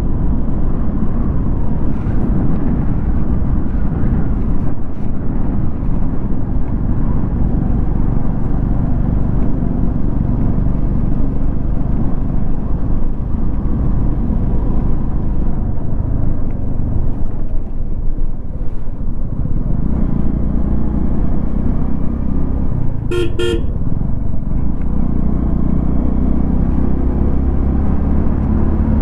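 Motorcycle on the move: wind rushing over the microphone over a low engine rumble. About two-thirds of the way through, a vehicle horn toots once, briefly.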